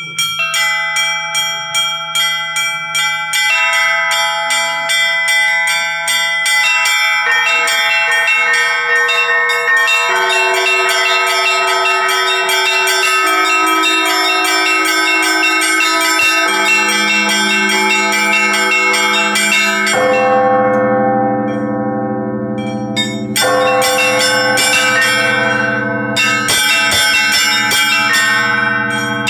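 Russian church bells rung by a bell ringer in a continuous peal (zvon): the small high bells are struck in quick repeated strokes, and lower, larger bells join one after another until the deep bass bell sounds about two-thirds in. The highest bells drop out briefly near the end, then come back in.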